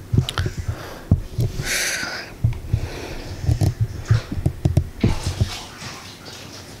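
Handling noise from a camera being picked up, moved and set down: a run of dull low bumps and knocks, with a short rustle about two seconds in.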